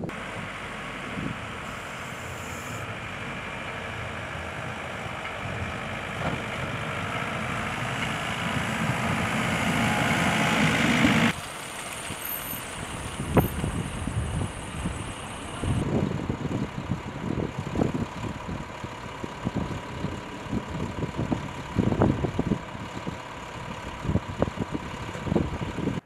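A vehicle's running noise growing steadily louder for about eleven seconds, then cutting off abruptly. After that, snowplow trucks idle with a steady hum, broken by repeated sharp clanks and knocks of metal plow gear.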